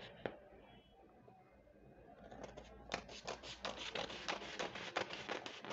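Scissors cutting through pattern paper: after a short quiet, a quick run of snips starts about two seconds in and goes on steadily.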